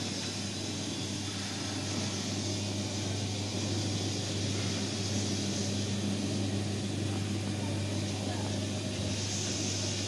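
Olive sizing machine running: its 0.75 kW single-phase electric motor gives a steady low hum, under a continuous light rattle of olives rolling over the grading rods and dropping into the bins.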